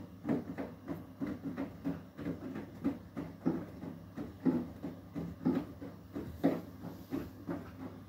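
Beko WTK104121W front-loading washing machine on its Eco 40 cycle, the drum turning slowly so that wet laundry and water slosh and splash in irregular thuds, about two or three a second, over a steady low hum.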